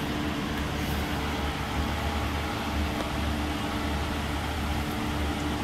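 Steady mechanical hum of a running fan: a low drone with two faint steady tones above it, unchanging throughout.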